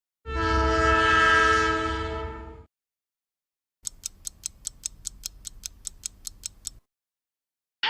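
A train horn sounds once for about two and a half seconds, a chord of several tones over a low rumble. After a second of silence comes a fast, even ticking, about six ticks a second, for about three seconds.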